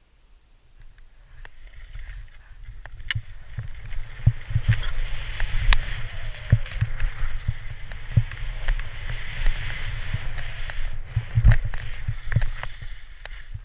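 Sliding downhill on firm, tracked snow: edges scraping with a steady hiss, broken by sharp knocks and thumps over bumps. It starts about a second in and grows louder over the next few seconds as speed builds.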